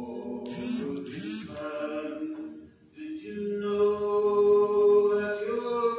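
A man singing a slow song in long held notes into a microphone, accompanying himself on acoustic guitar. A brief hiss comes about half a second in, and he breaks off briefly before a louder held note in the second half.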